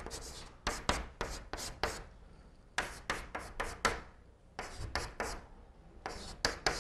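Chalk writing on a blackboard: quick runs of short scratching strokes with brief pauses between letters.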